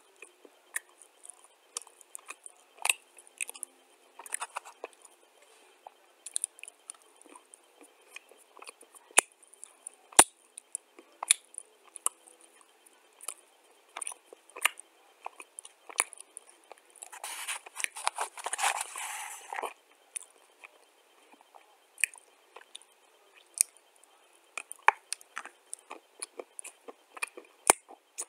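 A person chewing and crunching chunks of dry eating clay close to the microphone: a run of sharp, crisp crunches and clicks. About two-thirds of the way through there is a denser noisy stretch lasting a few seconds.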